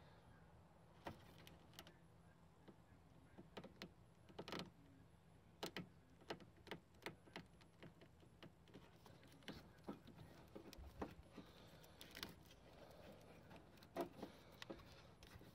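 Faint, irregular clicks and rustles of hands pulling a wiring harness and its ribbed plastic loom loose in a truck's engine bay, with a few sharper clicks about four and a half, twelve and fourteen seconds in.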